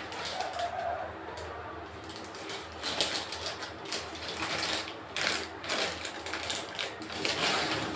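Plastic courier mailer bag crinkling and tearing as it is pulled open by hand, in irregular rustling crackles that grow denser and louder from about three seconds in.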